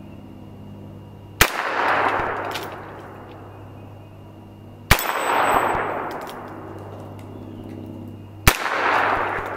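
Heritage Rough Rider single-action .22 LR revolver fired three times, about three and a half seconds apart. Each shot is a sharp crack followed by about a second of echo.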